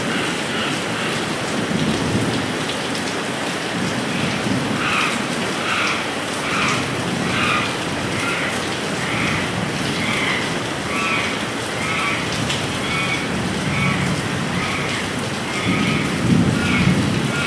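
Steady rain falling, a constant hiss of water. From about five seconds in, a short call repeats in the background, a bit faster than once a second.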